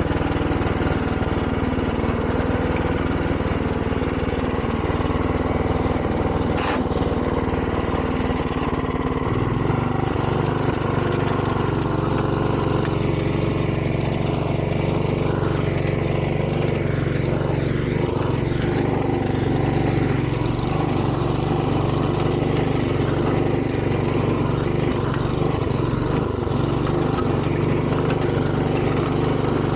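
Engine of a Grillo two-wheel walking tractor running steadily while its rotary tiller works garden soil. A deeper, stronger hum sets in about nine seconds in, with a single sharp click a little before it.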